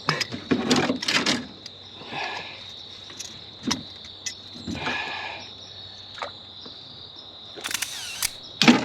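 Insects, such as crickets, trilling steadily at one high pitch. Over the trilling come a few sudden knocks and rustling handling noises, the loudest near the end.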